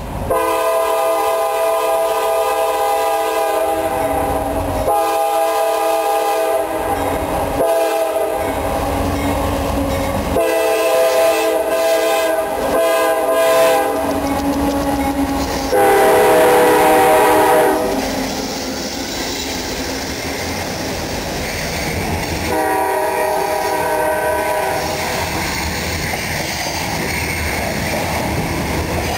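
CSX freight locomotive's air horn sounding a series of long blasts for a grade crossing as the coal train approaches and passes, the loudest blast a little past halfway. Between and after the blasts come the rumble and wheel clatter of loaded coal cars rolling by.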